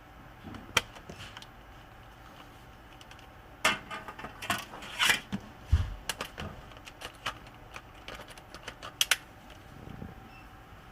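Sharp plastic clicks and knocks from a laptop being handled as its battery is fitted. There is a single click about a second in, then a quick run of clicks a few seconds later, a dull thump near the middle, and scattered clicks that die away near the end.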